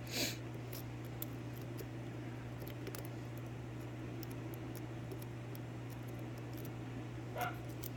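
Faint scattered metallic ticks of lock picking tools working the pins of a 5-pin Triangle padlock, over a steady low hum. A brief rustle comes just after the start and another near the end.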